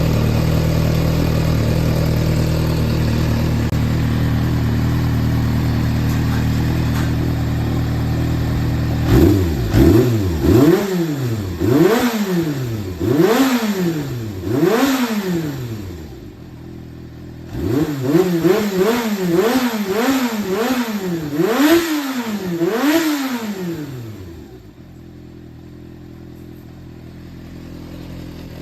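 Yamaha XJR400 air-cooled inline-four engine idling steadily, then blipped up and back down about a dozen times in two runs, before settling back to a quieter idle near the end. It runs cleanly, which the seller gives as free of abnormal noise, with high compression.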